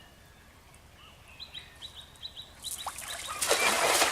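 A small bird chirping in a quick run of short high notes, about five a second, then a loud burst of splashing water that grows and is loudest near the end.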